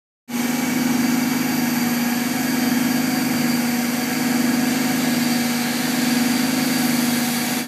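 Horizontal decanter centrifuge of a DAF-sludge oil extraction plant running: a steady machine drone with a strong low hum over a broad hiss. Its level swells gently every second and a half to two seconds.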